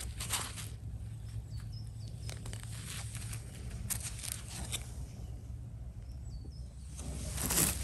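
Soft, intermittent brushing and scraping as a brush and knife clean dirt off a bolete mushroom, over outdoor ambience with a steady low rumble and a couple of faint high bird chirps. A louder rustle comes near the end.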